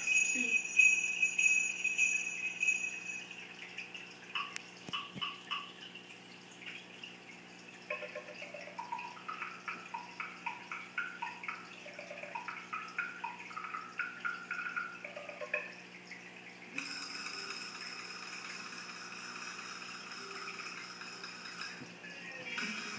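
Sampled percussion instrument sounds from an orchestra instrument display: jingle bells ringing for the first few seconds, then a few short knocks, then a quick tune of short notes at changing pitches. From about three-quarters of the way in, a steady shimmering noise takes over.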